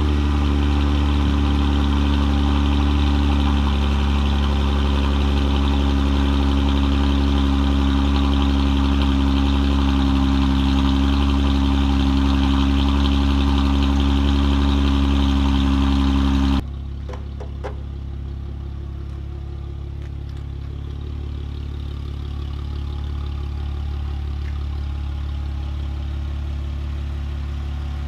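Jeep Wrangler JK's V6 idling steadily right after a cold start, heard at the tailpipe through a Dynomax Evolution muffler. A little over halfway through, the sound drops suddenly to a quieter, duller idle.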